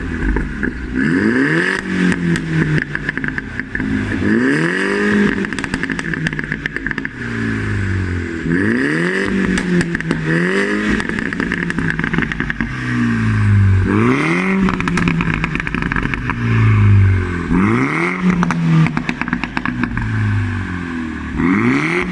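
Mini John Cooper Works turbocharged four-cylinder through a Remus aftermarket exhaust, revved up and let fall again and again, eight or nine times, with crackles and pops as the revs drop.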